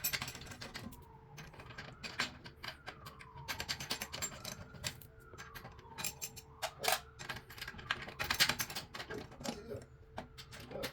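Irregular, rapid clicks and clinks of small hard objects, with a faint squeak that rises and falls about every second and a half.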